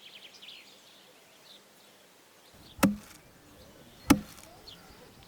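Faint outdoor ambience with small high chirps near the start, then two sharp, loud strikes a little over a second apart, each with a short low ring.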